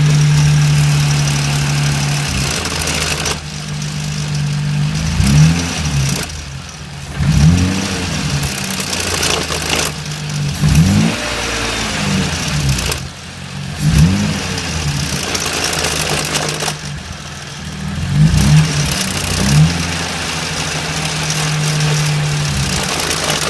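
BMW E30's swapped-in S52 straight-six running, blipped in a series of short revs that rise and fall back to a steady idle. The owner calls the noise it makes horrible and asks for help finding the cause.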